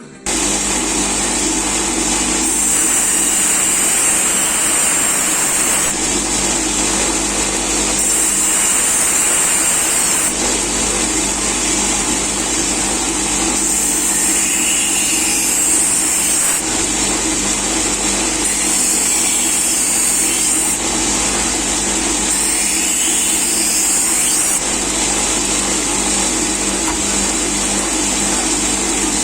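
Electric grinder running steadily while a knife blade is sharpened on it. The hiss of steel on the abrasive swells and fades with each pass, every two to three seconds.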